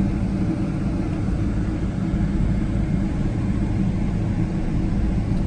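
Steady cabin rumble of a Boeing 777-300 taxiing, with a low engine hum running under it.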